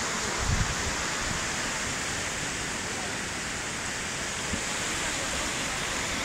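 Steady rushing roar of a muddy flash flood pouring across the road after a cloudburst. There is a brief low buffeting on the microphone about half a second in.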